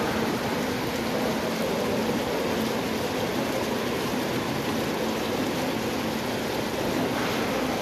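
Ornamental fountain's row of small bubbler jets splashing steadily into the pool.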